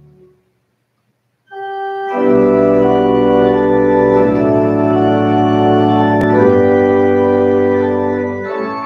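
Organ music: a soft chord dies away, and after about a second of silence loud, full sustained organ chords come in and move through a few chord changes.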